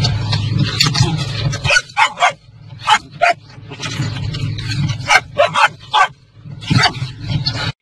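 Short, sharp barks and yips, about a dozen in quick bursts with short gaps between them, over a steady low hum. The sound cuts off suddenly near the end.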